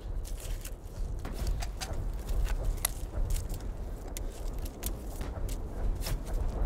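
A steady low rumble with irregular sharp cracks and clicks, a few a second.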